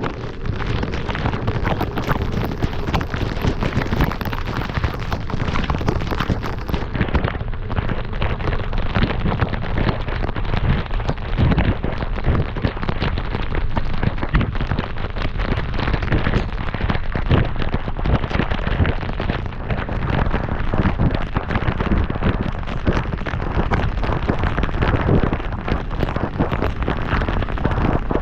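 Heavy rain pelting a moving car and the camera, a dense steady crackle of drops over a low rumble of wind and road noise.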